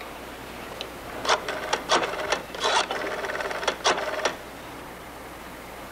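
Rotary telephone being dialled: the dial is wound round and whirs back with a rapid run of clicks, digit after digit, for several digits starting about a second in and ending around four seconds.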